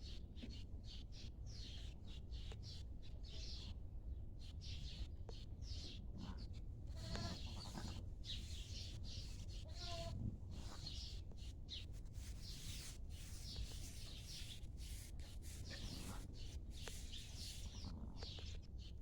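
Sheep bleating a few times, short separate calls about seven and ten seconds in. Small birds chirp high and repeatedly throughout, over a steady low hum.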